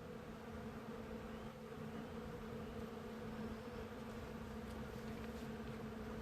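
Bees buzzing, a steady droning hum.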